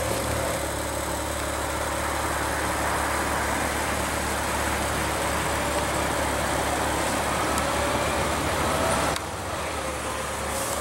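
Steady car engine idling amid traffic noise, with a faint whine that slowly rises in pitch. The level drops abruptly a little about nine seconds in.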